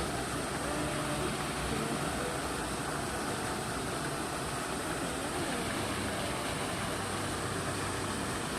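Water rushing steadily, a continuous even wash of sound.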